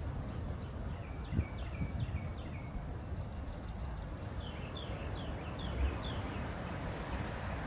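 A small songbird singing a run of about six quick down-slurred notes, a pause, then another similar run. A steady low background rumble lies under it, with a couple of soft thumps.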